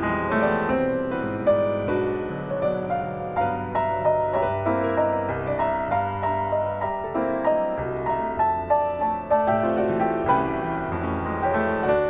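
Solo piano playing a gentle piece: a melody of single notes over lower held notes.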